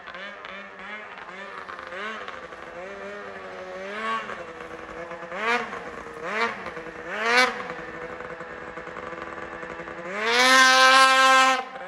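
Ski-Doo 600RS race snowmobile's two-stroke engine with a race-can exhaust, blipped in four quick revs about a second apart, then held wide open for nearly two seconds near the end. That held rev is the loudest part and cuts off sharply.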